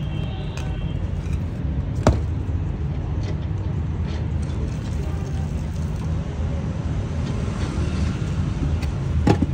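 A steady low engine rumble, with a sharp knock about two seconds in and another near the end.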